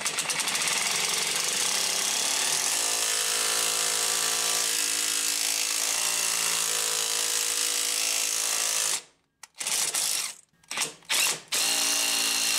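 Cordless impact driver hammering steadily as it drives the forcing screw of a pulley puller, drawing the crankshaft pulley off its snout. It stops about nine seconds in, fires in several short bursts, then runs steadily again near the end.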